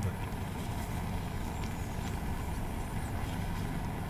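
Small gas canister camp stove burning steadily under an aluminium mess tin, a low even roar.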